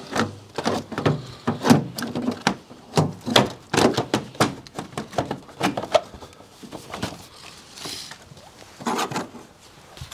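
A quick run of clicks, knocks and rattles from car parts and tools being handled and fitted, busiest in the first six seconds, then a few more knocks near the end.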